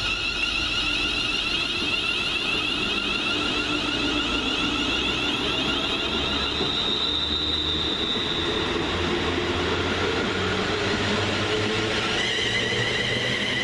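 Class 350 Desiro electric multiple unit pulling away from the platform: its traction motors whine in several steady high tones over the rumble of the train, and the tones shift about twelve seconds in.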